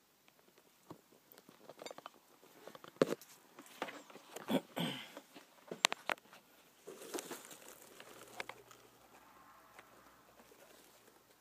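Handling noise: irregular clicks, knocks and rustling of leaves and plastic as leafy greens are set into a plastic tortoise tub. The sounds are loudest and thickest a few seconds in and thin out to faint rustling after about eight seconds.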